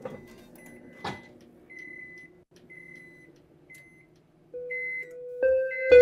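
Microwave ovens' piezoelectric buzzers beeping: a string of short high beeps from several ovens, following and overlapping one another, with a click about a second in. The beeps all sit close to one pitch, between B and B sharp. From about four and a half seconds an electronic keyboard plays notes, matched by ear to the beeps' pitch.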